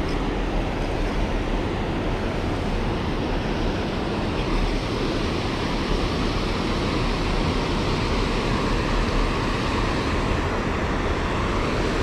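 Steady rush of river water pouring over a low dam and churning in whitewater below it.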